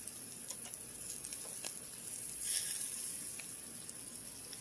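Bratwurst sizzling on a small grill: a steady hiss with scattered pops and crackles, and a louder burst of sizzle about two and a half seconds in.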